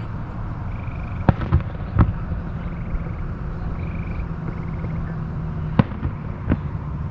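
Distant fireworks shells bursting, heard from about 4,000 feet away: five sharp bangs, three close together about a second in and two more near the end, over a steady low background rumble.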